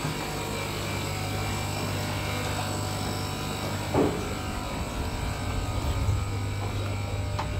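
An engine running steadily, a constant low drone with a buzzing hum.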